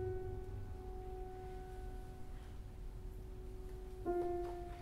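Grand piano played slowly, one note at a time: a mid-range note rings and slowly fades, then a second, slightly lower note is struck about four seconds in and rings on.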